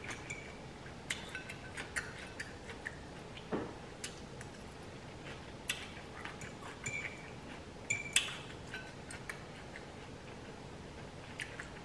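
Faint, scattered clinks and clicks of a metal fork against a glass bowl as ramen noodles are stirred and lifted, a few clinks ringing briefly, with soft chewing sounds between them.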